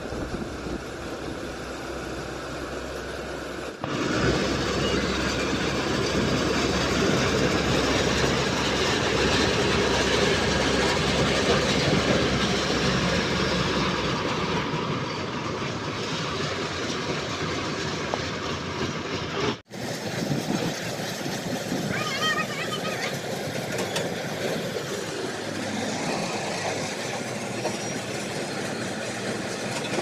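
Kartar combine harvester running: a steady diesel engine and machinery noise that gets louder about four seconds in, breaks off abruptly for a moment past the middle, then carries on a little quieter.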